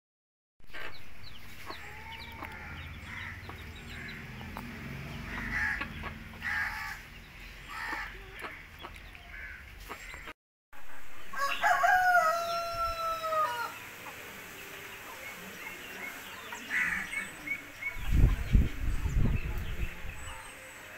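Native chickens: chicks peeping and hens clucking, then a rooster crows once about halfway through, a call of about a second and a half. A low rumble comes near the end.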